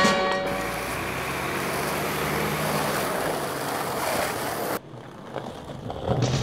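Skateboard wheels rolling over rough asphalt, a steady grinding hiss mixed with street traffic noise; it cuts off suddenly about three quarters of the way through, leaving a quieter background.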